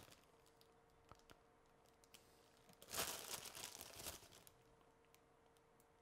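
Thin plastic produce bag of mung bean sprouts crinkling as it is handled and sprouts are pulled out, in one burst about three seconds in that lasts a second and a half. Otherwise near silence with a few faint ticks.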